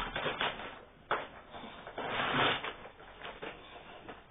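Rustling and handling noises in a few short bursts, the loudest about two seconds in.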